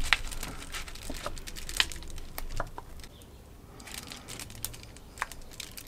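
Small scattered clicks and scratches of fingers and a fingernail prising the upper brush clip off a tiny N gauge locomotive chassis, with a quieter stretch about three seconds in.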